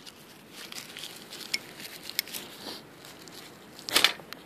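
Dry grass and birch-bark tinder crinkling and crackling as it is handled. About four seconds in comes a loud, sharp scrape: a ferro rod struck to throw sparks onto char cloth and the tinder nest.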